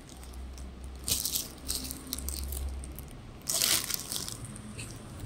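Clear plastic shirt packets crinkling and rustling as they are handled, with two louder rustles, one about a second in and one a little past the middle.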